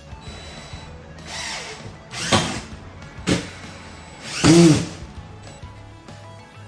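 Power drill run in four short bursts, each spinning up and winding down; the last, a little after four seconds in, is the longest and loudest. Background music plays underneath.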